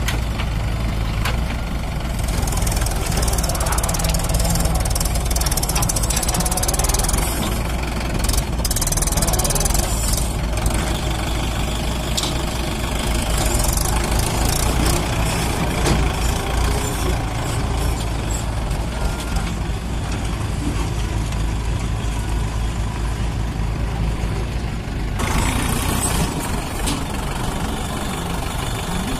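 Mahindra 585 DI tractor's diesel engine running steadily under load, hauling a loaded trolley.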